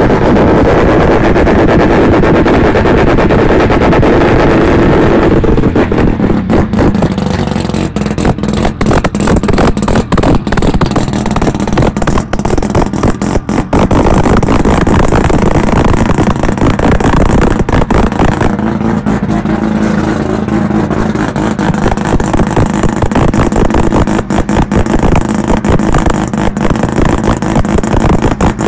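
Mazda RX-7's turbocharged 13B rotary engine running loud and steady at idle, with brief irregular dips in loudness.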